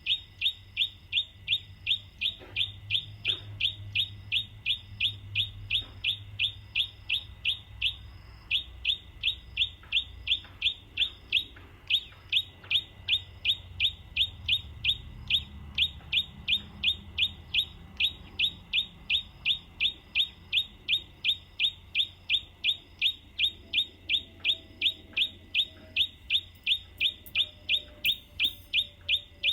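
A bird's call repeated over and over: short falling chirps at a very even pace of about two a second, pausing briefly only once or twice.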